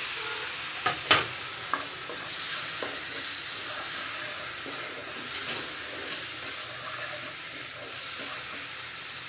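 Chopped tomatoes sizzling as they fry in hot oil and spice masala in a nonstick frying pan, stirred with a wooden spatula. There are two sharp knocks about a second in.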